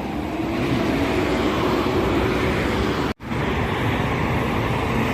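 Toll-road traffic rushing past at speed, a steady roar of intercity buses' tyres and engines. The sound cuts out for an instant about three seconds in.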